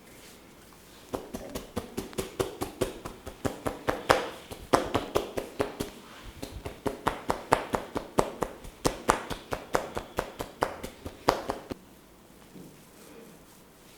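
Massage tapping: hands striking the body in a fast, even rhythm of hollow slaps, about five a second, starting about a second in and stopping near the end.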